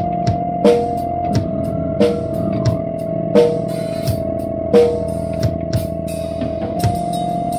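Live instrumental rock: a drum kit keeps a steady beat under a long held organ note, with electric guitar. Quick hi-hat or cymbal ticks come in near the end.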